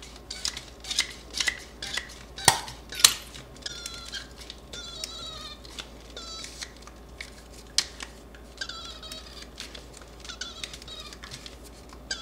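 Wacaco Nanopresso portable espresso maker being hand-pumped to brew a shot: a few sharp plastic clicks in the first seconds, then squeaky strokes of the piston in quick bursts as the pump is worked in a rhythm.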